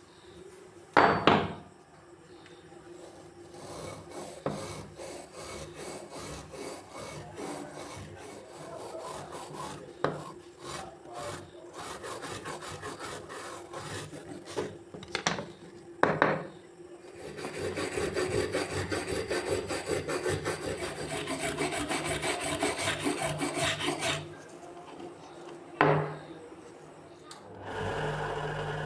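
Hand working of a rusty steel wrench: rapid back-and-forth rubbing or filing strokes, loudest and steadiest for several seconds past the middle. Three sharp knocks break in along the way, one near the start, one just past the middle and one near the end.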